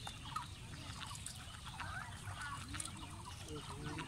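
Birds calling: a scatter of short chirps and falling call notes, with clucking fowl-like calls near the end, over a steady low background rumble.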